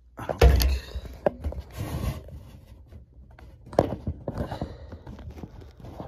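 Handling noises inside an air handler's blower compartment as its wiring and the blower motor housing are reached into and moved: scattered knocks, clicks and rustling. The loudest is a heavy thump about half a second in, with another sharp knock about four seconds in.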